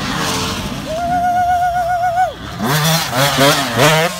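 Dirt bike engine at high revs, holding a steady pitch for over a second before the revs drop. It then rises and falls in pitch several times in quick succession as the throttle is worked.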